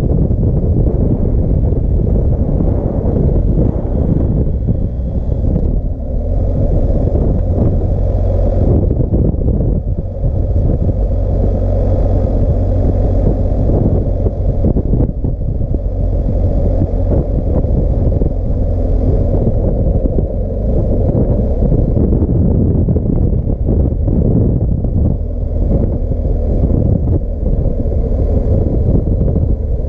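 BMW R1250GS Adventure's boxer-twin engine running at a steady cruise while riding, mixed with heavy wind rumble on the microphone.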